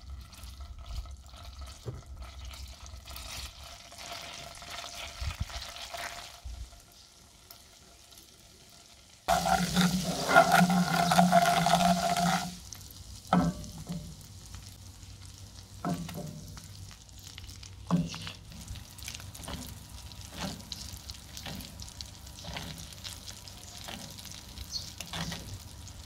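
Butter sizzling and bubbling in a frying pan, with a sudden loud burst of sizzling about nine seconds in that lasts some three seconds. After it come short spurts of sizzle and light knocks as peeled hard-boiled eggs are set into the hot butter and turned with a wooden spoon.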